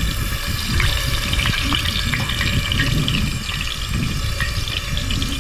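Hot oil sizzling in a frying pan around battered pike fillets: a steady hiss with many small crackles and pops, over a low rumble.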